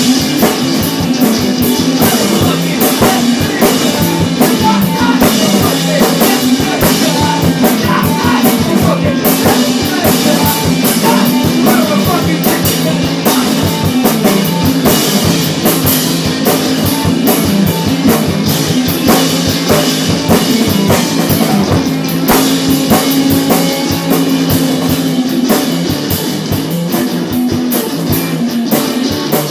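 A rock band playing a funky 60s-style song: drum kit keeping a steady, busy beat under guitar and a prominent bass line.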